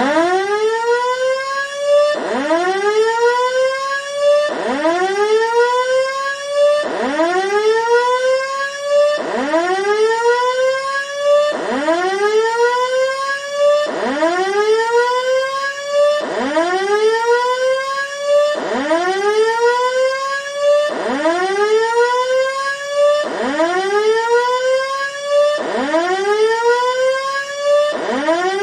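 Electronic fire-alarm siren tone from a chip-on-board sound IC. A rising wail sweeps quickly up in pitch, levels off, then drops sharply and starts over, repeating about every two and a quarter seconds.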